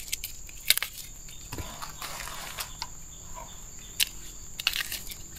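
Crickets chirring in a steady, high, even tone, with a few sharp snaps and some rustling.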